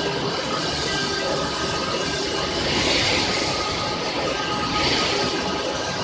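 13-die aluminium rod breakdown wire drawing machine running: steady mechanical noise with several steady whining tones over a rushing sound, and two louder hissing surges about three and five seconds in.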